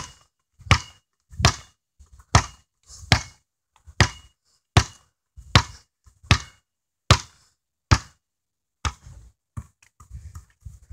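A basketball being dribbled on a hard floor: a steady run of about a dozen bounces, a little more than one a second, then a few softer, uneven knocks in the last few seconds.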